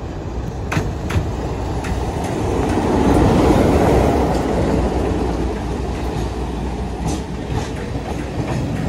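Class 33 diesel locomotive's Sulzer engine running as it passes close by, loudest about three to four seconds in as the locomotive goes by. The coaches follow, their wheels clicking over the rail joints.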